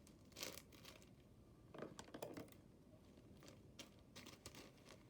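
Faint handling of a small plastic packet: a few soft crinkles and light clicks, in scattered groups, as it is opened.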